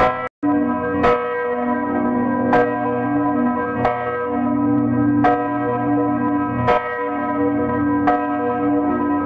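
A church bell tolling, one stroke about every 1.4 seconds, each stroke ringing on until the next. The sound cuts out for an instant just after the first stroke.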